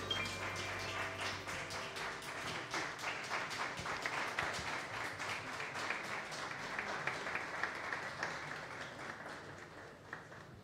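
Small live audience applauding after a jazz tune, with the band's last notes dying away in the first seconds; the clapping thins and fades out near the end.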